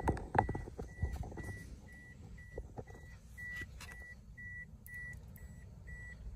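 A car's door-open warning chime beeping steadily, a single high tone about twice a second. A few knocks and handling bumps sound near the start, over a low rumble.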